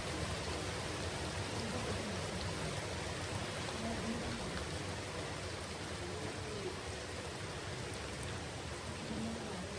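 Steady rain, an even hiss with no thunder crack or rumble.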